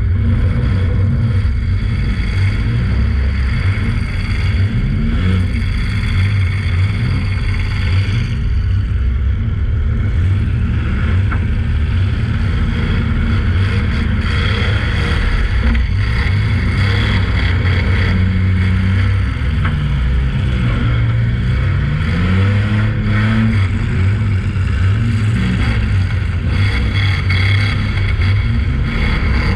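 Fullsize demolition derby car's engine running hard, heard from inside the car, its pitch rising and falling repeatedly as the driver revs it up and lets off.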